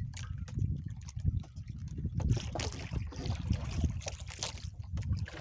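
Water lapping and trickling against a small fishing boat's hull under a continuous low rumble, with scattered rustles and light clicks of hands handling fishing gear.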